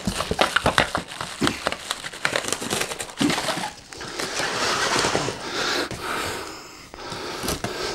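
Large cardboard box being handled and shifted: knocks and taps of cardboard in the first half, then a longer rough scraping and rustling of cardboard from about four seconds in.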